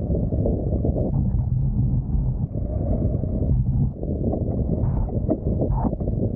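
Wind buffeting the microphone in a dense low rumble, with choppy water slapping against a wingfoil board in irregular knocks as it rides across the waves.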